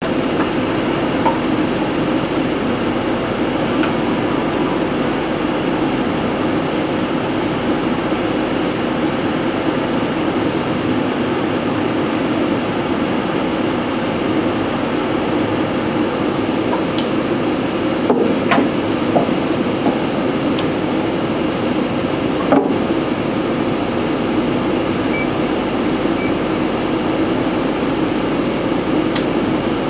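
Loud steady machinery drone filling the electrical vault, with a few sharp metallic clicks and knocks from the work about two-thirds of the way through.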